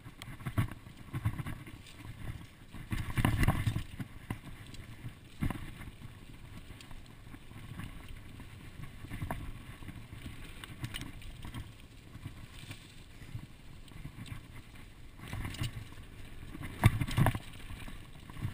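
Mountain bike riding fast down a dirt singletrack strewn with dry leaves: tyre noise and the bike rattling over the bumps, with loud jolts about three seconds in and near the end.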